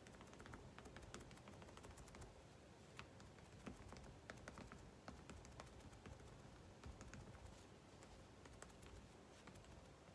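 Near silence with faint, irregular light taps and clicks as small MDF ornament cutouts are handled and sponge-painted on a craft table.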